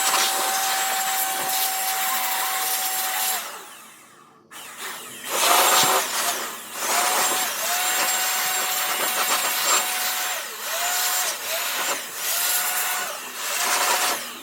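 Electric blower blowing dust out of a desktop PC case. It runs in bursts, switched on and off repeatedly: a long first burst, a pause, then several shorter ones. Its motor whine rises quickly in pitch each time it starts up.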